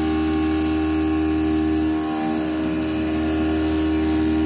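Langmuir Systems MR-1 CNC mill spindle running, its end mill cutting 8670 carbon alloy steel under flood coolant: a steady machine hum with several held tones and a hiss above. The end mill is one the machinist says is already starting to dull and leave a burr.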